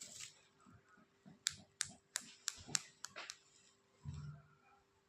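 A quick run of sharp, separate clicks, about six over two seconds, like small hard objects being handled, followed by a short low thud about four seconds in.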